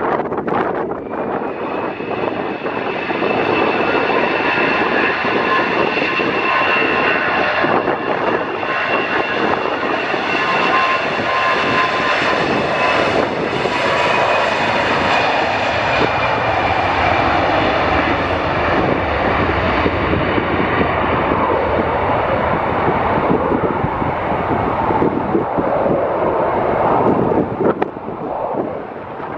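easyJet Airbus A320 jet engines at departure power as the airliner passes. The engines run loud and steady, with whining tones that slowly drop in pitch, and are shrillest about halfway through before fading near the end.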